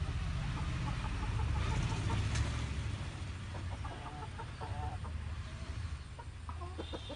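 Farmyard fowl clucking in short, repeated calls from about halfway through, over a low rumble that is loudest in the first three seconds.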